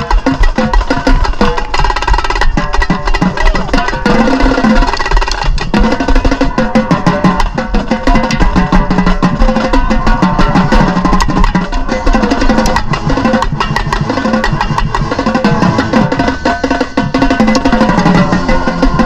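Marching tenor drums played fast at close range, with rapid strokes moving between the differently pitched drums, over the rest of the marching band playing.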